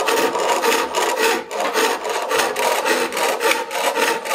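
Steel scraper cutting a white oak blank turning on a foot-powered spring pole lathe: a steady rasping scrape in quick repeated strokes.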